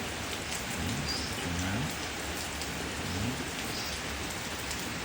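Heavy rain falling steadily, a continuous hiss of rain on the ground and standing water.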